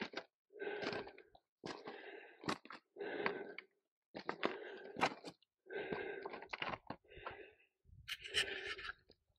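Footsteps crunching across a slope of loose talus rock, the flat stones clinking and shifting underfoot, at about one step a second.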